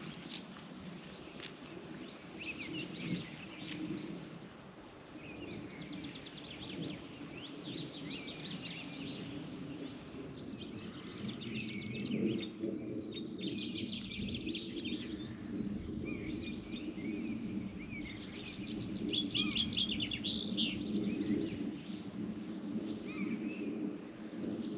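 Songbirds singing, with many quick chirps and trills throughout and denser bursts of song near the middle and toward the end, over a steady low outdoor background noise.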